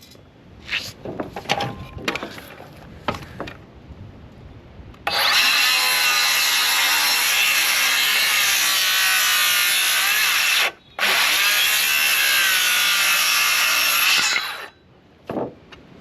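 A power saw cutting through a timber collar tie for about ten seconds, stopping for a moment partway through. Before it come a few light knocks of the timber being handled.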